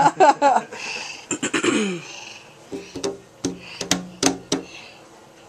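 A high, wavering voice in the first half second, then a run of short, low throaty sounds with small clicks between them.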